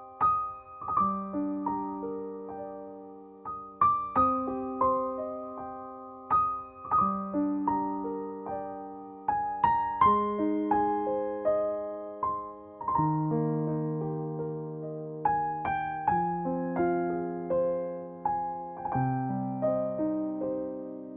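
Soft, slow solo piano music: notes struck one after another and left to ring and fade, with low bass notes under a gentle melody.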